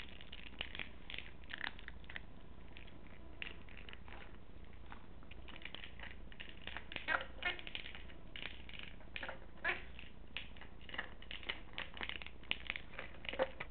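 Sound-making treat ball being pushed around by a dog: a string of short, irregular chirp-like sounds that come more often in the second half.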